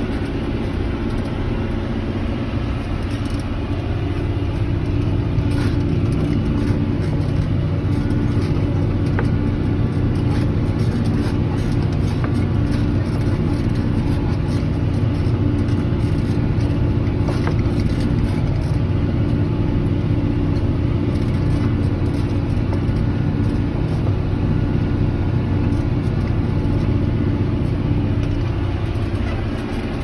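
Tractor engine pulling a mounted reversible plough through the soil, heard from inside the cab. It runs at a steady pitch and an even level, with faint light ticks and rattles over it.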